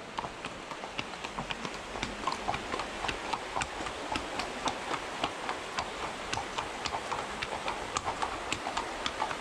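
Hooves of two walking horses, one a KWPN warmblood gelding, clip-clopping on a paved path: several sharp, uneven clicks a second as the two gaits overlap.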